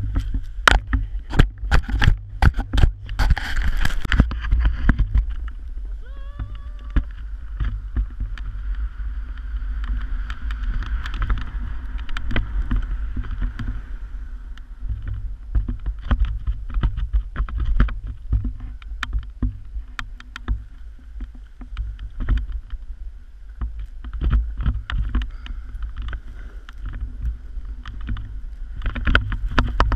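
Wind buffeting a pole-mounted action camera's microphone as a rider descends through powder snow, a deep rumble under the hiss of snow, with frequent sharp knocks and clatter from the pole being jostled, thickest in the first few seconds.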